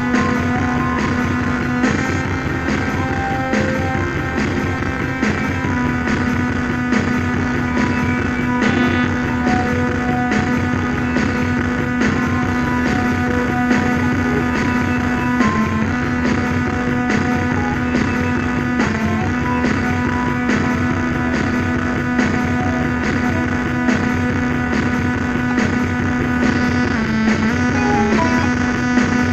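Rock music with guitar and a steady driving beat.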